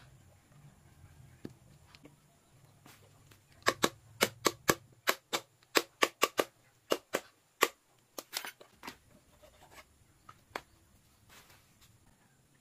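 A run of about twenty sharp clicks, two or three a second, starting a few seconds in and stopping after about five seconds, with a few fainter clicks later, made by hands working a small tool on PVC pipe parts.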